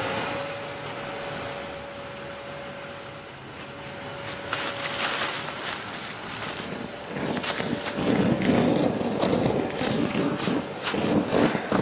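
Kärcher multi-purpose wet-and-dry vac in blower mode, a steady whine with rushing air. About seven seconds in the whine stops, and scraping, rattling noise with many small clicks takes over.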